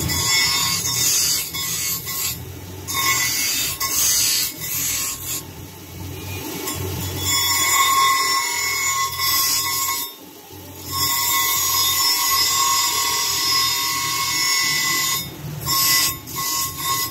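Bench grinder wheel grinding the steel of an old file being shaped into a dagger blade: a loud, high screeching grind in repeated passes. It breaks off briefly several times as the steel is lifted off the wheel, with the longest gap about ten seconds in.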